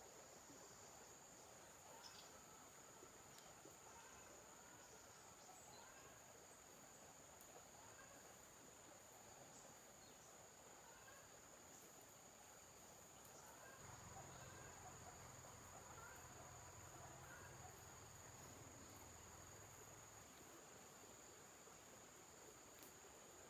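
Faint insect chorus: a steady, high-pitched buzz that runs on without a break, with a few faint chirps over it.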